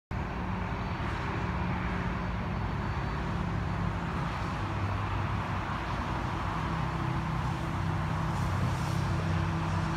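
Steady freeway traffic noise: cars and trucks passing continuously on a multi-lane highway, with a low engine hum rising and falling under the tyre noise.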